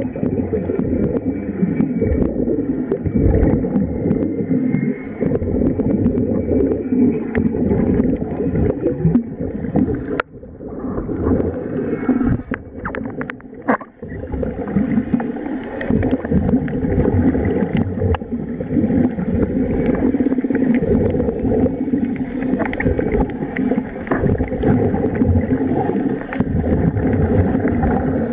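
Underwater rumble and gurgling of air bubbling out of a diver's surface-fed bubble helmet, heard through a camera's underwater housing. The sound dips briefly about ten seconds in, with a few sharp knocks before it comes back.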